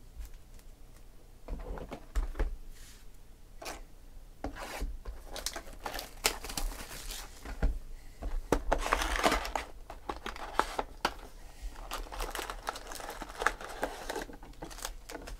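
Plastic shrink-wrap crinkling and tearing as a hobby box of football trading cards is handled and unwrapped, with scattered clicks and cardboard scuffs. The crinkling starts about a second and a half in and is busiest in the middle.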